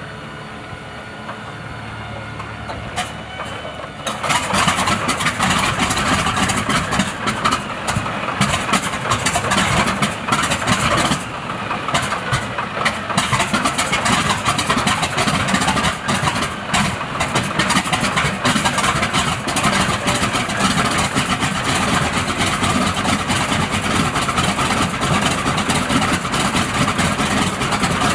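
Large WW2-era piston aircraft engine cold starting: a quieter steady whir as it turns over for about four seconds, then it catches suddenly and runs loud and rough.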